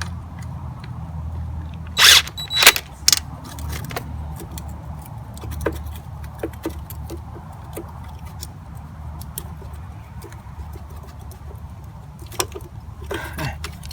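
Metal clinks and clicks from hand tools and motorcycle parts being worked during carburetor removal. There are three loud sharp knocks about two to three seconds in, scattered lighter ticks, and a cluster near the end, over a steady low hum.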